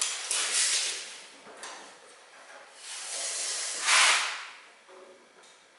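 A steel tape measure being pulled out and drawn along the edge of a steel door panel, making a scraping hiss in two swells, the louder one about four seconds in.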